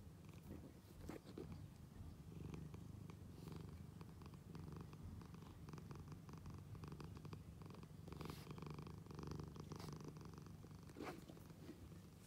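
Domestic cat purring steadily, a low rumble that swells and eases with its breathing.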